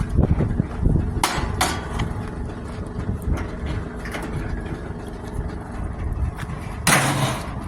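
Vehicle engine idling steadily, with two sharp knocks a little over a second in and a brief clattering burst near the end.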